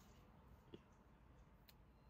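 Near silence: room tone, with a couple of faint clicks.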